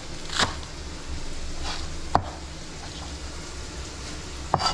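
Chef's knife chopping green onions on a plastic cutting board: one last chop about half a second in, then a sharp knock of the blade on the board around two seconds in and two quick knocks near the end.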